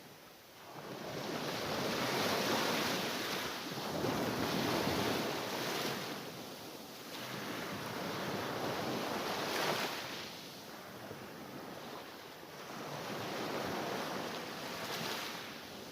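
Mediterranean Sea waves washing onto the shore, the surf swelling and falling back every few seconds, with a sharper wave breaking about ten seconds in.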